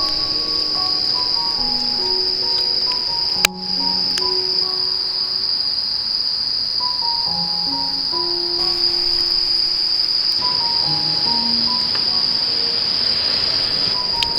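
Steady, dense insect chorus with a continuous high-pitched chirring, with soft background music of slow single notes underneath. A sharp click sounds once, about three and a half seconds in.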